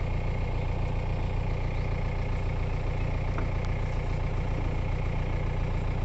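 Diesel engine of a JCB digger idling steadily, a low even rumble, while its bucket is held still for a pillar to be rigged.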